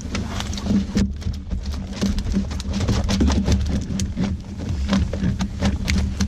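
Live catfish flopping and slapping on a plastic weigh sling as a wet keep net is emptied over them: irregular wet slaps, patter and clicks over a steady low hum.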